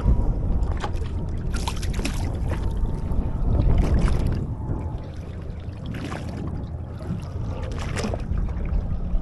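Wind rumbling on the microphone over water lapping against the side of a boat, with a few brief slaps of water against the hull.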